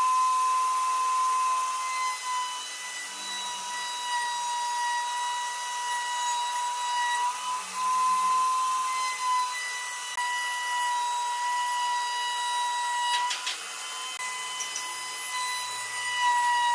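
Electric power tool motor running with a steady high whine, its pitch dipping slightly now and then. A few sharp clicks come about thirteen seconds in.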